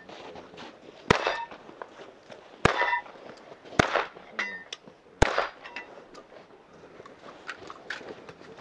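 Four shots from a Vepr-12 semi-automatic 12-gauge shotgun, spaced about one to one and a half seconds apart. Each is followed by a brief metallic ring from a steel target being hit.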